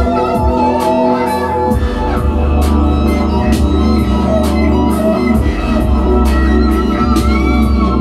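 Live instrumental electronic jam: synthesizers and a keyboard hold sustained chords over a deep bass, with an electric guitar and a drum machine keeping a steady beat of regular hi-hat ticks.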